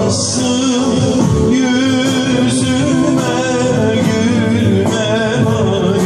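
Man singing a Turkish folk song live, his held notes wavering with vibrato, over bağlama (saz) and band accompaniment.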